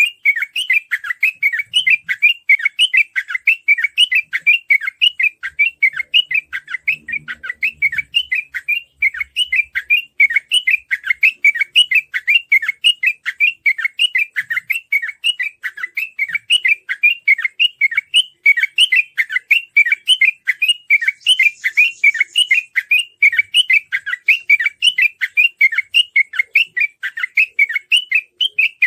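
Sooty-headed bulbul (trucukan) singing a continuous fast run of short, quickly repeated whistled notes, the rapid 'ropel' song used as a lure to set other bulbuls singing.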